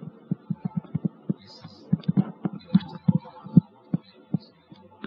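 Irregular soft low taps and knocks, several a second, from a computer's mouse and keys being worked close to the microphone.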